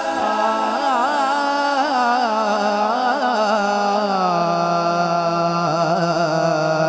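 A man singing a naat, drawing out a long wordless, ornamented line that wavers up and down in pitch. About four seconds in, it settles onto a lower held note.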